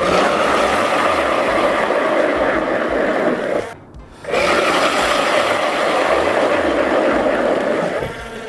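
ION Alpha battery-powered ice auger drilling through clear lake ice, a loud, steady grinding rasp of the bit cutting ice. It stops for about half a second just under four seconds in and starts again on the next hole.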